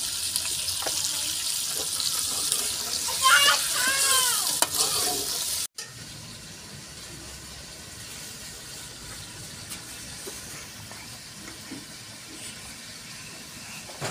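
Chicken pieces sizzling in hot oil in an aluminium pot, stirred with a metal ladle, with a steady high hiss. About six seconds in, the sound cuts off abruptly, leaving only a much quieter steady background.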